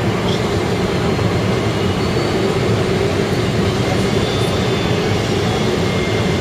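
Steady engine and airflow noise inside the cabin of a Boeing 767-300ER airliner descending on approach: a low, even rush with a faint high steady whine.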